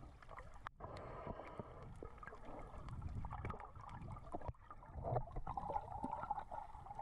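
Water noise around a camera held underwater while snorkelling, uneven, with many small clicks scattered through it.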